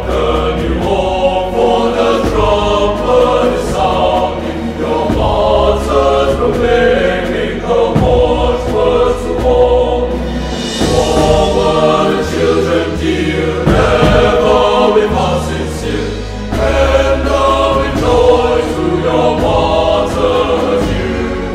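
Slow choral music: voices held on long notes over sustained low notes that change every second or two.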